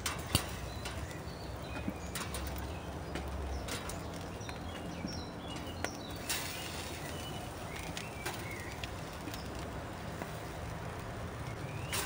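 Birds chirping in the background, with scattered sharp clicks over a faint low hum.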